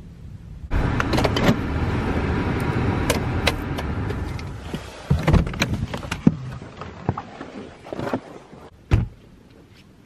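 An SUV's door being handled: a steady rush of noise for the first few seconds, then scattered clicks and knocks, and a low thud near the end.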